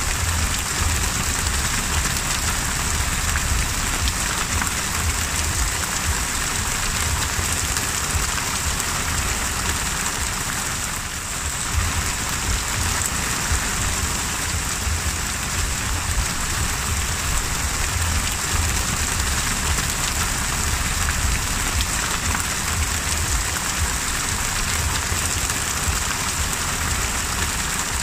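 Heavy rain pouring onto the open sea surface: a steady, dense hiss with a low rumble underneath.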